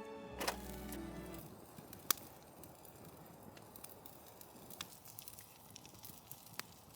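Wood fire of damp firewood crackling: a low hiss with a few sharp pops a second or two apart.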